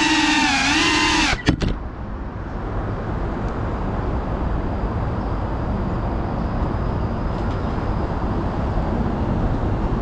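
A wavering, high-pitched whine cuts off about a second in with a few sharp clicks. It gives way to steady road-traffic rumble from the elevated highway running alongside.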